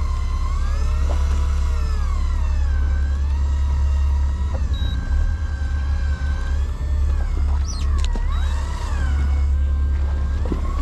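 Electric fishing reel's motor whining as it winds line up from deep water, its pitch slowly rising and falling with the load, over a steady low hum.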